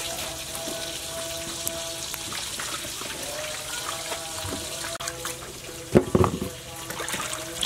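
Water splashing and dripping as lettuce leaves are washed by hand in a metal basin of water. About six seconds in, a few sharp knocks as cucumbers are set down into a plastic basket.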